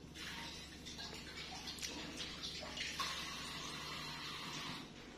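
Water running steadily, starting suddenly and cutting off about five seconds later, with a few small clicks on top.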